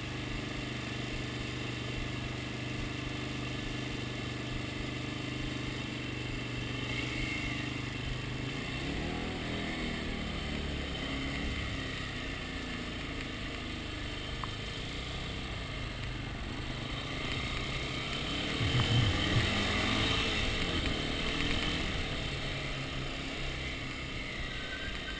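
Dirt bike engine idling steadily, then revving and accelerating as the bike pulls away after about eight seconds. It is loudest as it speeds up again about three quarters of the way through.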